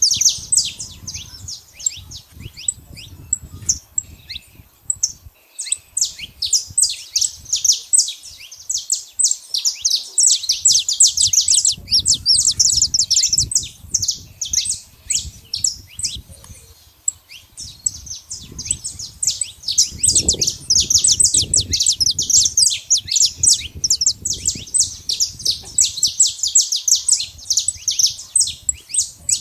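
Saffron finch song: rapid, high chirps and trills in a dense, almost unbroken stream, thinning out for several seconds early on before becoming continuous again.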